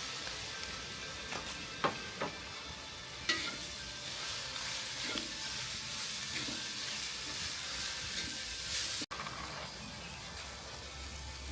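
Mussels sizzling in a pan over a wood fire: a steady hiss, with a few sharp clicks about two and three seconds in.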